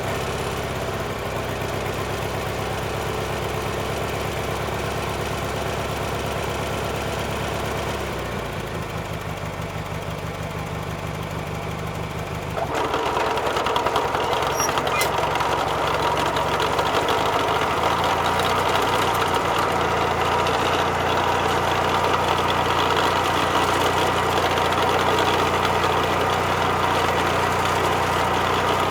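Lawn mower engine running steadily. About thirteen seconds in it grows louder and brighter, then keeps running evenly at that level.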